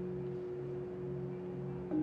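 Mandala-etched crystal singing bowls sounding together as several sustained, overlapping tones, with a low tone that swells and fades about twice a second. Near the end another bowl is struck and a new, louder tone rings out.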